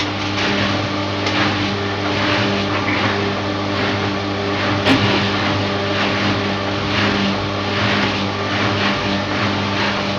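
Washing machine running with its drum turning: a steady motor hum with a faint swish that repeats about once a second, and one sharp click about five seconds in.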